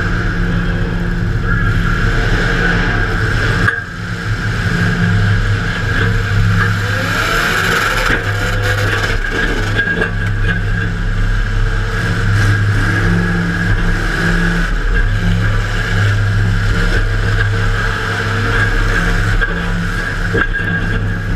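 Demolition derby car's engine running hard, heard loud from inside the car, with a few rising revs partway through.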